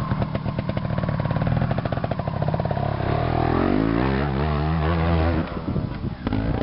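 Trials motorcycle engine running and revving hard under load on a steep climb, its pitch rising and wavering from about three seconds in, then dropping away near the end.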